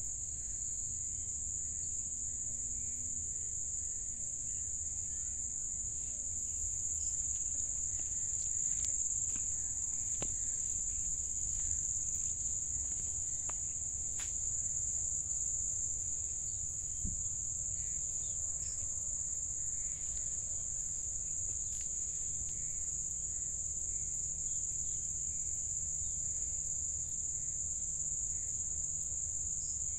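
Insects trilling in one unbroken, high-pitched drone, over a low rumble.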